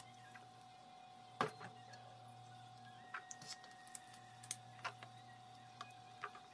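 Small stainless steel bowl scooping thick gochujang and knocking against the steel mixing bowl and plastic storage container: one sharp knock about a second and a half in, then a scatter of lighter clicks and taps. A faint steady hum sits underneath.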